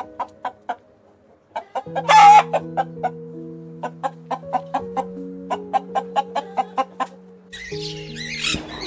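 Hens clucking in short, regular clucks, about four a second, with one louder squawk about two seconds in. Near the end, blue-and-yellow macaws squawk.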